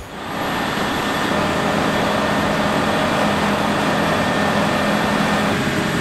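Combine harvester running steadily in the field: a continuous engine drone over a broad rushing machine noise.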